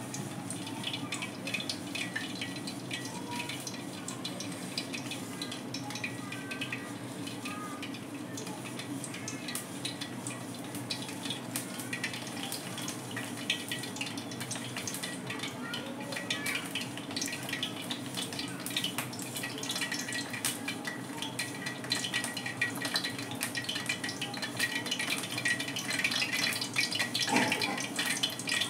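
Oil heating in an iron kadai over a gas burner: a steady hiss and hum with light scattered crackles, which grow busier and louder near the end.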